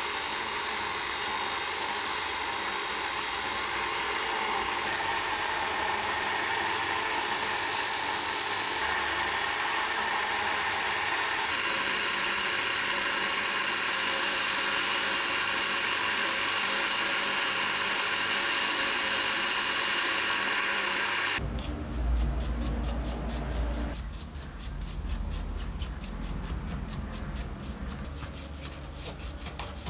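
Old bench grinder running steadily, with small metal parts and then a motor housing held against its spinning wire wheel. About 21 seconds in this stops suddenly and gives way to a brush scrubbing the copper windings of an electric motor's stator in quick, even strokes.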